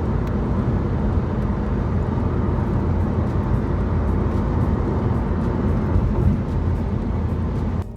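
Steady low rumble of a car on the move: engine and road noise. It cuts off suddenly just before the end.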